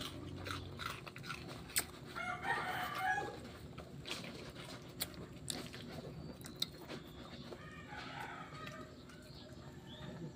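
A dog chewing and crunching chicken, with many sharp clicks. Two longer calls sound in the background, about two seconds in and again about eight seconds in.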